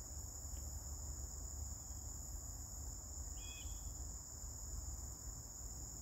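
Steady high-pitched insect chorus that does not let up, over a low rumble, with one brief faint chirp about halfway through.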